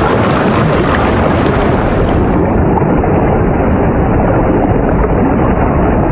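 A loud, steady rushing, rumbling noise soundscape played as a temporal-entrainment demonstration: a track slowed down with its tone lowered to give a sense of slowing down. About two and a half seconds in, its upper range drops lower.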